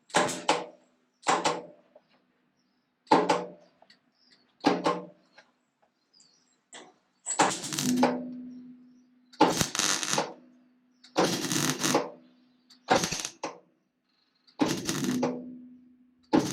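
MIG welder tack welding thin steel sheet in short bursts: about ten crackling spurts of half a second to a second each, the later ones longer, with a faint steady hum between some of them.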